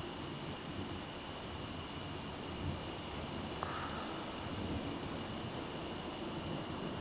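Night insect chorus of crickets: a steady high trill, with another insect calling in short, higher pulses about once a second.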